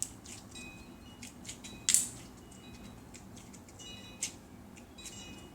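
Clear slime with sequins being squeezed and poked by hand, giving irregular small clicks and pops, the loudest about two seconds in.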